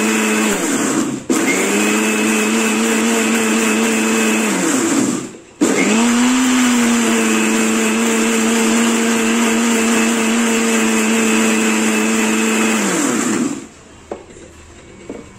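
Lexus electric mixer grinder with a steel jar grinding onion, ginger, garlic and spices into a paste, its motor whining steadily. It runs in spells: a brief stop about a second in, a wind-down and restart around five seconds in, and a wind-down to a stop near the end.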